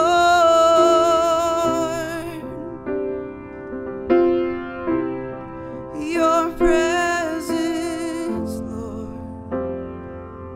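A woman singing a slow worship song over a grand piano, holding long notes with vibrato near the start and again about six seconds in. The last couple of seconds are piano chords alone.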